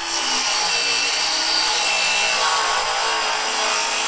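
Cordless DeWalt miter saw with a Diablo blade cutting through a pressure-treated 2x8, the blade's loud, steady whine carrying through the wood.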